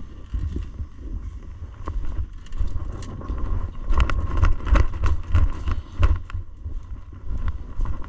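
Wind buffeting the microphone in gusts, with a run of sharp clicks and knocks about halfway through.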